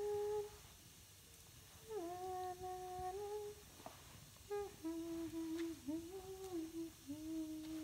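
A woman humming a slow tune in three phrases of long held notes, with short pauses between them.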